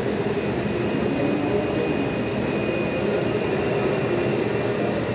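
Jet engines of a taxiing JetBlue Airbus A320 running at low power: a steady noise with a faint high whine.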